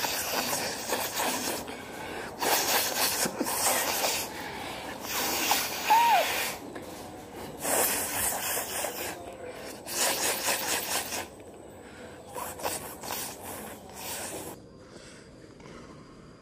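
A woman blowing her nose forcefully over and over: about eight loud, noisy blasts of roughly a second each, with a brief squeaky whistle about six seconds in.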